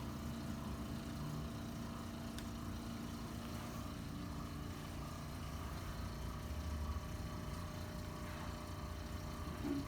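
A steady low mechanical hum made of several constant tones, like a motor or fan running, with a brief louder sound just before the end.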